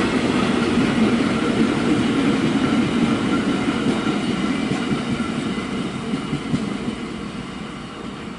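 Freight train of flat wagons rolling past: a steady rumble and clatter of wheels on rail, fading over the last few seconds.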